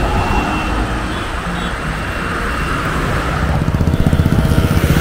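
Road traffic passing close by on a busy multi-lane highway: a car goes by with tyre and engine noise, and a rapid low fluttering builds up near the end.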